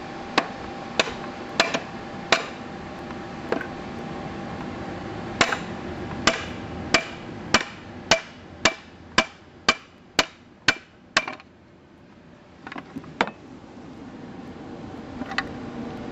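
Rubber mallet knocking on a steel socket set over the end of a tractor transaxle shaft, driving the shaft down to split the case halves. About twenty sharp blows: a few spaced strikes, then an even run of about two a second through the middle, then a few more near the end.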